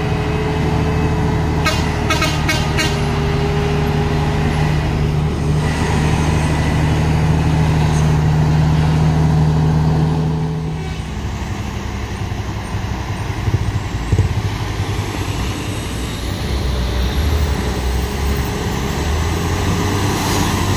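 Heavy diesel truck engine labouring up a steep grade: a steady low drone that eases off about eleven seconds in. A quick run of sharp clicks comes about two seconds in.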